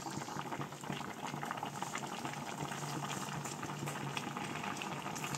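A pan of fish and vegetable stew boiling hard, with steady bubbling and fine popping.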